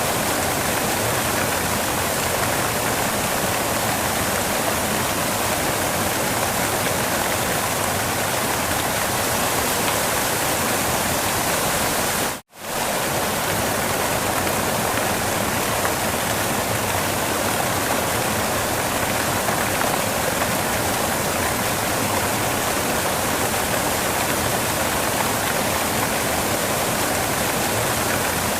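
Waterfall: a steady, even rush of falling water. The sound cuts out completely for a split second near the middle, then resumes unchanged.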